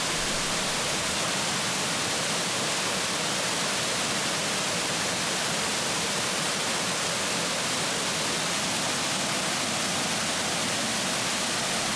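Waterfall pouring: a steady, even rush of falling water with no single splash standing out.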